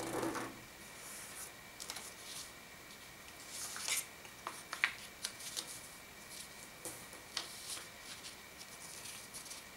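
Square origami paper rustling and crinkling as it is folded, unfolded and creased by hand, in irregular handling noises with louder rustles near the start and about four to five seconds in.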